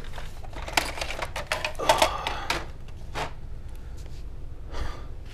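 A plastic Nerf blaster being handled after a slip, its parts knocking and clattering. There are several separate clicks and knocks, busiest about two seconds in, over a low steady hum.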